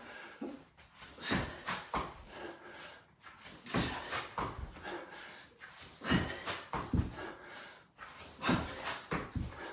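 A man breathing hard in loud puffs of effort while doing burpee-style reps on an exercise mat, with dull bumps from his body and feet on the mat. The puffs come in ones and twos about every two seconds, once per rep.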